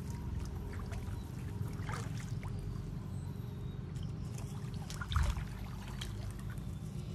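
Pond water sloshing and splashing around a man wading chest-deep and feeling under the water with his hands, with a louder splash about five seconds in, over a steady low rumble.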